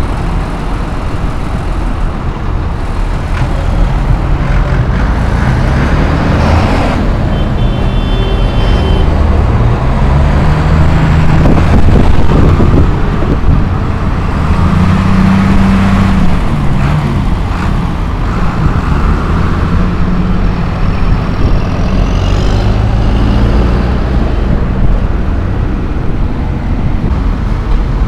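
Diesel engines of a line of large farm tractors running close by, loud and steady, with engines revving up and down a little past the middle. A brief high beeping sounds about eight seconds in.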